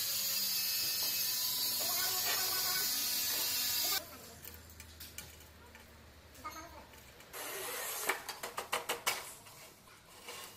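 Manual rail tile cutter's scoring wheel scratching along a glossy porcelain tile with a loud, steady hiss for about four seconds. A second scraping stretch follows near the end, breaking into a quick run of sharp mechanical clicks.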